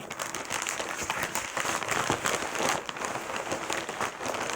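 Packaging crinkling and rustling in a steady, dense crackle as a package is opened and dug through by hand.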